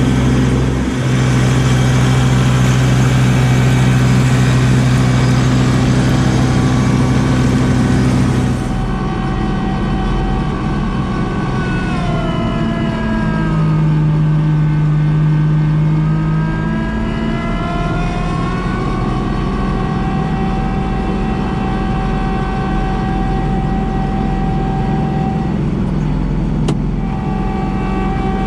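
Kubota LX2610 compact tractor's diesel engine running steadily. Its pitch sags for a few seconds near the middle and then climbs back. A single sharp click comes near the end.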